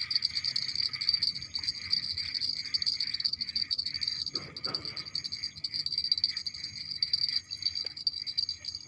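Steady chorus of crickets and other insects: a continuous high pulsing trill over a lower pulsing band. A short voice-like call cuts in about halfway through.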